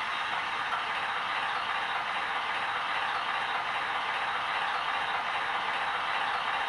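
Sound decoder of a Roco H0 model ČSD T752 diesel locomotive playing a steady diesel engine idle through the model's small speaker. The sound is thin and tinny, with little bass.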